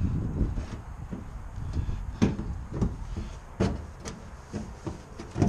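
A few separate knocks as a sheet-steel patch panel is pressed and shifted into place against the lower bed side of a Ford F-150 during test fitting.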